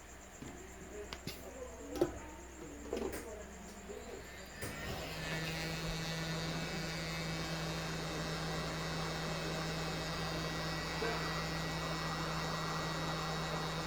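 A few light taps and clicks, then about four and a half seconds in a hot-air rework station's blower starts and runs with a steady hum and hiss, heating the fluxed part for desoldering.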